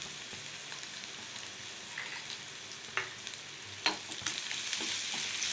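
Sliced onions with chilli powder and turmeric sizzling in hot oil in a frying pan, a steady hiss with a few sharp pops and clicks. Near the end a spoon starts stirring them in the pan.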